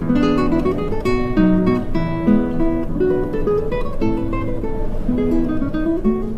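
Background music: an acoustic guitar playing a run of plucked notes and chords.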